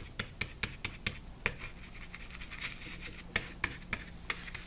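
Stiff bristle paintbrush scratching back and forth in quick strokes, about four or five a second, with a spell of continuous scrubbing in the middle. This is the brush being wiped out to leave it nearly dry for dry-brushing.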